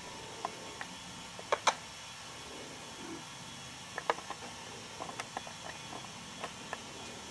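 Scattered light, sharp clicks and ticks, a few at a time, over a steady hiss; the loudest pair comes about one and a half seconds in.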